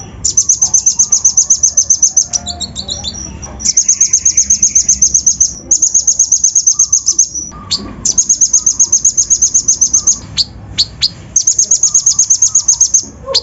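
Kolibri ninja (konin), a sunbird, singing high, fast trills of rapidly repeated notes in phrases of about two seconds with short pauses between them, then a few separate sharp chirps near the end.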